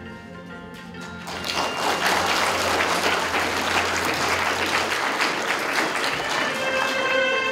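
Audience applause breaks out about a second in and continues steadily over soft music with long held notes.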